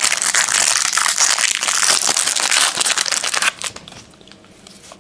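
A 2003 Fleer Genuine Insider trading card pack wrapper being torn open and crinkled by hand: a loud, dense crackling that stops about three and a half seconds in, followed by a few soft clicks as the cards are handled.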